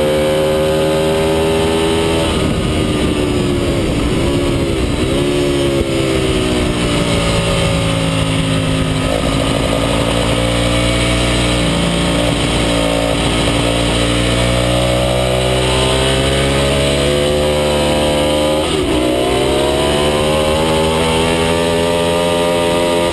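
Racing motorcycle engine at high revs, recorded from the bike itself with a steady rush of wind noise. Its pitch dips sharply a few times early on as the rider brakes and shifts down, runs high and fairly steady through a long leaning turn, then drops and climbs again near the end as it accelerates.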